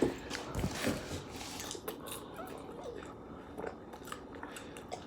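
Crunching and chewing of spicy Takis rolled tortilla chips and popcorn, in short, scattered crackles.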